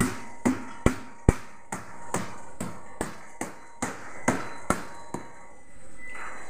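Hand repeatedly slapping the side of a fiberglass water-filter tank, about thirteen sharp knocks at a steady two to three a second, stopping about five seconds in.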